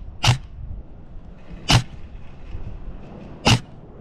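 Three single shots from a custom-built airsoft DMR, each a sharp crack with a low thump, spaced about a second and a half apart.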